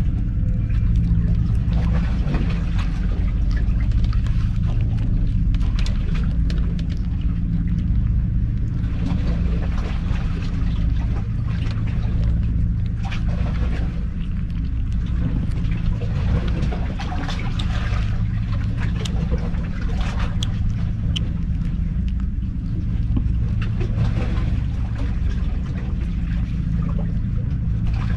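Kitten eating wet cat food close up: many small, irregular wet chewing and smacking clicks over a steady low mechanical hum.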